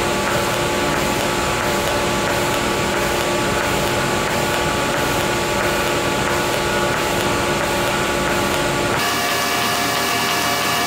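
TIG welding arc on a stainless steel seam: a steady hiss and buzz with several steady tones through it. The tone changes abruptly about nine seconds in.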